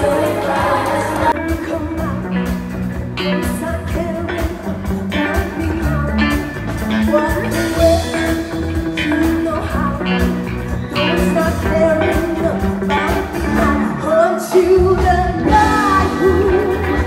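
Live band music with singing: a lead vocal over electric guitars and a drum kit, in a pop-rock style.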